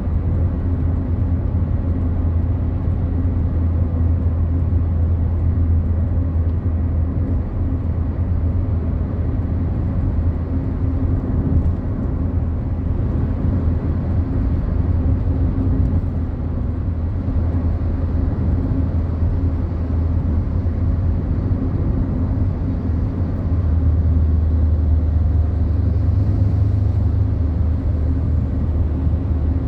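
Fiat Palio Fire on the highway, heard from inside the cabin: steady road and tyre noise over a low engine drone at cruising speed. The drone shifts slightly and grows a little louder about three-quarters of the way through.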